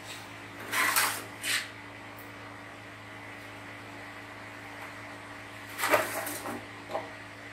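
A metal spoon scraping and clinking against a large steel cooking pot as thick vegetable soup is scooped out. It comes in two short bursts of clatter, about a second in and again near six seconds, over a steady low hum.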